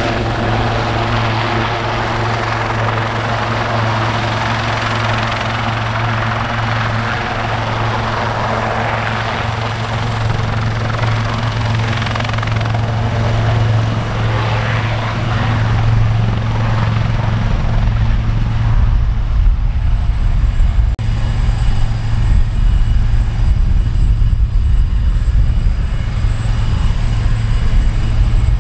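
Wildcat military helicopter's turbine engines and rotors running with a steady low hum and a thin high turbine whine. About two-thirds of the way through, the whine drops a little in pitch and the higher noise fades, while a gusty low rumble grows.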